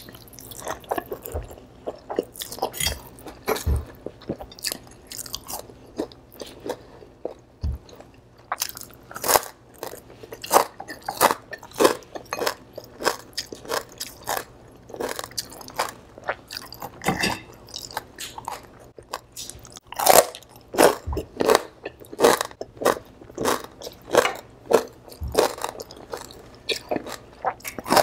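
Close-miked eating: soft chewing of palabok noodles at first, then from about eight seconds in, rapid crunching of crispy fried pork, several loud crisp crunches a second.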